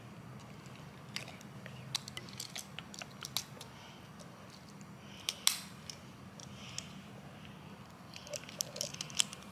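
Plastic joints of a small Transformers toy clicking and snapping as its parts are twisted and folded by hand to transform it: scattered sharp clicks, the loudest about five and a half seconds in.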